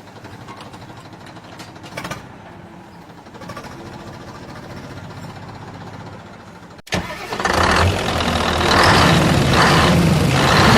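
An engine sound, running low and steady. About seven seconds in it cuts off abruptly and gives way to a much louder engine sound that pulses.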